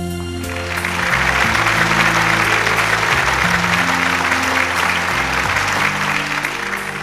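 Audience applauding over music with long held low notes; the clapping swells about half a second in and eases off near the end.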